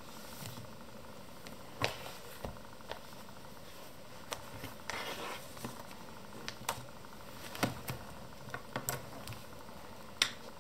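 A notebook pulled from a bookshelf and set down on a wooden desk, then a pen handled: scattered light knocks and taps with a brief rustle about five seconds in, the sharpest tap near the end, over a steady low hiss.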